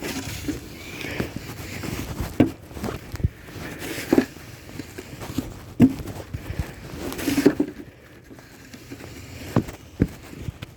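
Snow shovel scraping through about 5 cm of fresh snow, with irregular knocks and footsteps on the snowy ground. The longest scrape comes a little past the middle.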